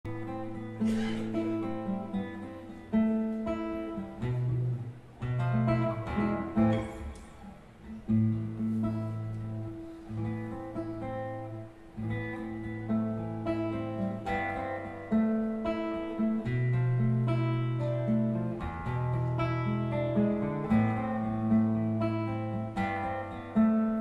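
Acoustic guitar played solo as the instrumental introduction to a song: plucked chord notes ringing over held bass notes.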